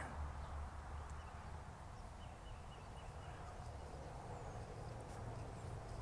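Faint footsteps through dry leaf litter and brush, over a steady low wind rumble on the microphone.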